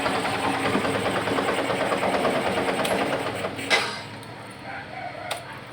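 Yamaha FZ16's single-cylinder carbureted engine idling with a fast, even beat, its carburettor mixture just leaned out to cure a rich, flooding setting. About three and a half seconds in it is switched off with a click and goes quiet; another sharp click comes near the end.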